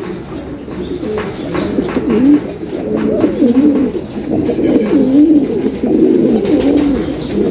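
Domestic pigeons cooing over and over, several low warbling coos overlapping, with a few light clicks among them.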